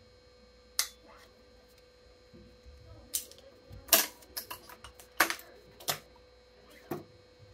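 Sharp clicks and taps, about ten, irregularly spaced and bunched together in the middle, as string clamps and the racket frame are handled on a Yonex ES5 Pro stringing machine while stringing the mains, over a faint steady hum.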